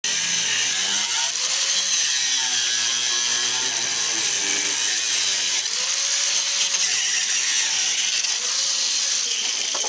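Angle grinder cutting through a car's sheet-metal rear quarter panel: a steady, high-pitched grinding whose motor pitch sags and recovers several times as the disc bites into the metal.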